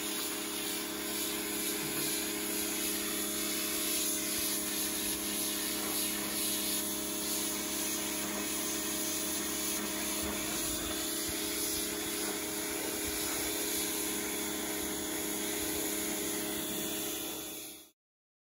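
Pressure washer running steadily: the motor and pump hum under the hiss of the water jet spraying onto a carpet mat. It cuts off suddenly near the end.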